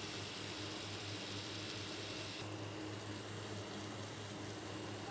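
Steady hiss over a constant low hum from a pan of tomato-and-corn masala cooking on a gas stove; the hiss drops off about halfway through.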